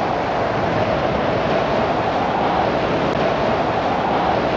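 Steady roar of storm wind and heavy sea with a continuous droning hum through it, recorded from a lifeboat in a gale.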